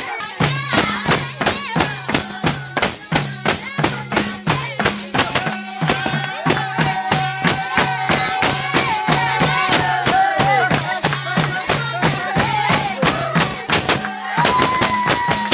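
Nepali folk music: a steady jingling percussion beat of about four strokes a second over a repeating low two-note drum pattern. A high melody line with sliding notes comes in about five seconds in.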